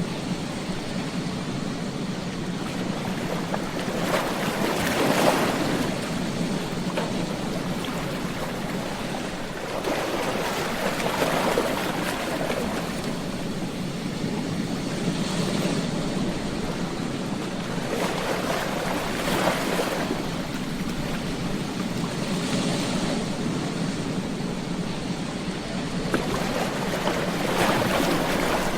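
Ocean waves breaking on a beach: a steady wash of surf that swells and falls back about six times, every four to six seconds.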